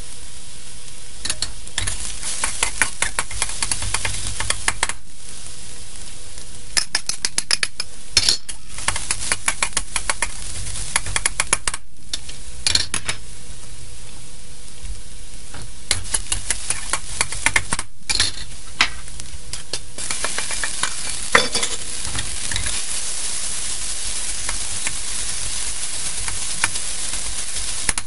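Minced garlic sizzling in hot oil in a carbon-steel wok, with a spatula scraping and clicking against the wok in bursts as it is stirred. About two-thirds of the way through, the sizzle grows fuller and more even as sliced beef goes into the wok.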